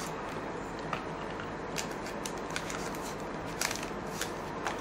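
2011-12 Upper Deck SP Authentic hockey trading cards being handled and slid over one another, giving a scatter of light clicks and snaps over a steady background hiss.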